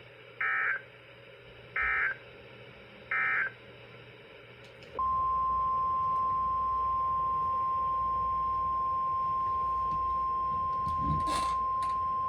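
Three short EAS data bursts, SAME end-of-message tones, each a warbling electronic screech about a third of a second long, marking the end of the tornado watch broadcast. After a short pause comes the NOAA Weather Radio 1050 Hz warning alarm tone, one steady tone held about eight seconds, which announces a warning-level alert. A brief crackle sounds about eleven seconds in.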